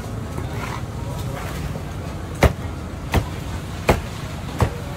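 Broad knife chopping down through a thick apam balik pancake onto a wooden cutting board: one sharp chop at the start, then four more from about halfway, roughly 0.7 s apart.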